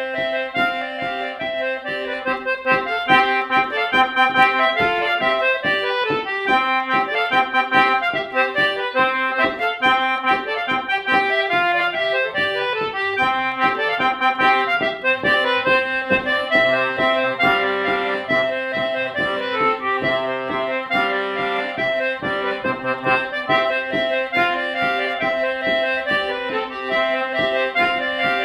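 Concertina played solo: a quick, lively folk tune of fast-changing notes over a held low note.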